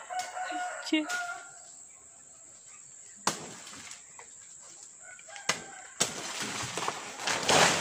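A rooster crows briefly at the start. Then come two sharp chopping knocks, a couple of seconds apart, as a banana plant's trunk is hacked. Near the end a loud rustle of leaves and brush swells up, over a steady high buzz of insects.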